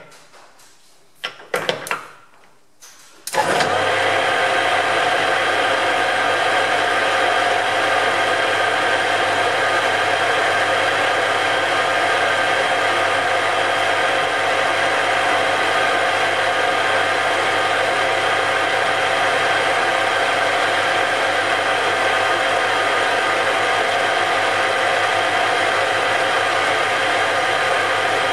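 A few sharp knocks, then a little over three seconds in a metal lathe starts up. Its motor and headstock gears run steadily, with a constant gear whine.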